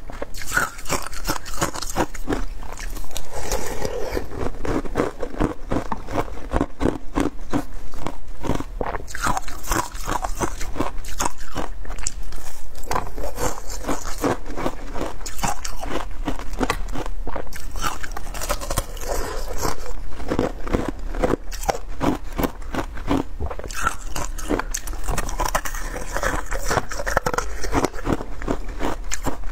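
Close-miked biting and crunching of thin ice set with pomegranate seeds, a steady run of sharp cracks and crunches as it is chewed.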